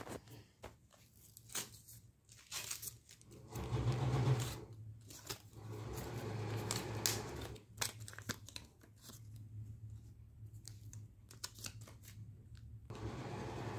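Paper being handled and torn: irregular crisp rustles and short tearing sounds. A low steady hum comes in about three and a half seconds in.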